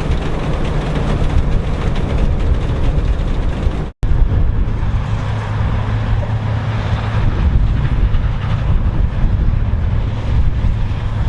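Vintage farm machinery engines running steadily under load at harvest. Just before the midpoint the sound cuts out for an instant and resumes with a lower, steadier engine note.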